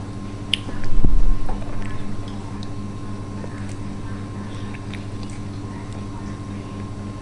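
A toddler chewing and smacking on soft dragon fruit, with small wet mouth clicks, over a steady background hum. A loud low thump comes about a second in.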